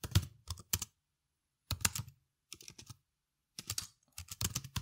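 Typing on a computer keyboard: short runs of keystroke clicks with pauses between them.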